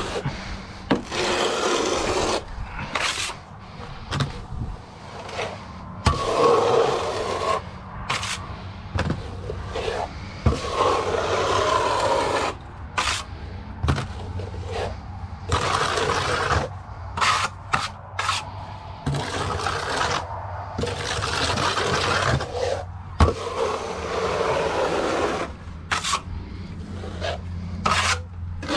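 Trowel scraping base coat render across external wall insulation in repeated sweeping strokes, each a second or two long, with a steady low hum underneath.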